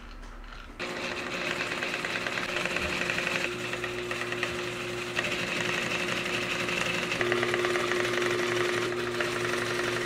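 Industrial sewing machine starting up about a second in and then running steadily, stitching through layered tent fabric: a constant motor hum with a fast, even ticking of stitches.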